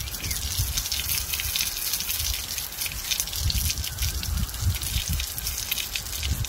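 Rain pattering as a dense stream of fine drops, with an uneven low rumble underneath.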